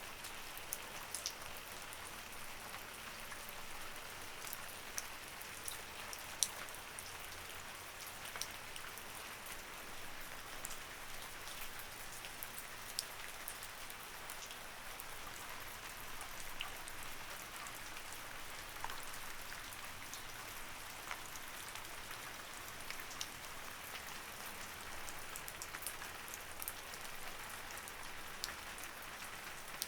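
Light rain falling steadily: a soft even hiss with many separate drops ticking sharply on a surface.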